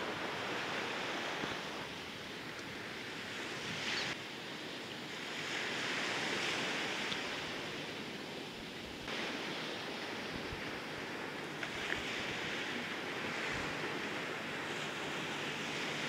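Small waves washing against a sandy shore, a steady hiss that swells and eases, with some wind. The wash changes abruptly a few times, at about 4 and 9 seconds in.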